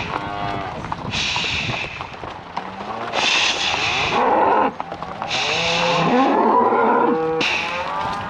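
Cattle bawling and mooing, several cows and calves calling over one another. A high chirring call repeats about every two seconds above them.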